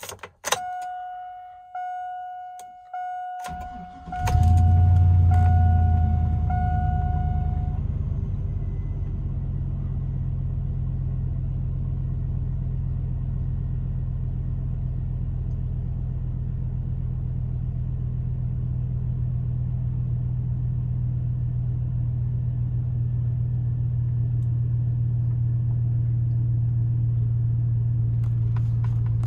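A dashboard warning chime dings about once a second, then the 2002 Chevrolet Silverado's 5.3-litre V8 cranks briefly and catches about four seconds in with a loud flare. It settles into a steady cold-start idle heard from inside the cab, and the chimes stop a few seconds after it starts.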